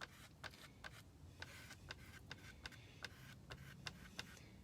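Faint, quick repeated strokes, about two or three a second, as orange paint is worked through a silk-screen stencil onto a wooden surface.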